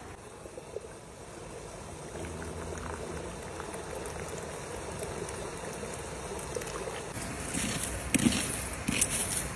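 A small stream runs steadily, and partway through tea is poured from a kettle into a cup. Near the end come several loud bursts of hissing as the hot campfire ashes are doused, throwing up a cloud of ash and steam.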